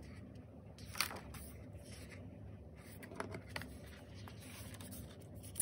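Pages of a bound photobook being turned by hand: quiet paper handling with a few soft page flicks, the clearest about a second in.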